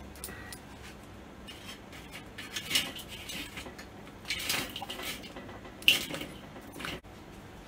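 Metal grill tongs clinking and scraping against the steel charcoal baskets and grate of a Weber kettle grill as chunks of pear wood are picked up and set on the lit charcoal. The clatters are separate and irregular, the sharpest near the end.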